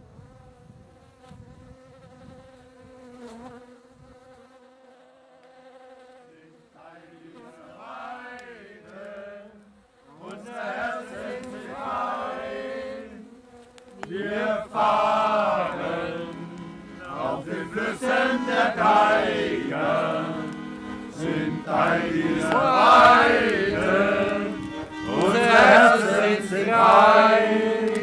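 A steady buzzing hum for about six seconds, then a song with singing over held accompanying chords comes in and grows louder toward the end.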